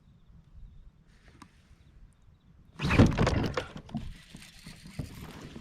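A hooked bass thrashing and splashing at the water's surface, a sudden loud splashing burst about halfway through that fades within a second.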